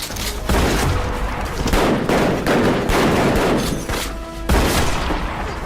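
Gunfire: several loud bursts of shots about a second apart, each trailing off in an echoing tail, with music underneath.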